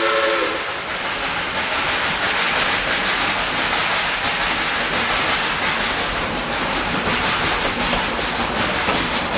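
Tweetsie Railroad steam train running: a loud, steady rush of noise with a fast, even beat as it rolls along. The tail of its steam whistle cuts off about half a second in.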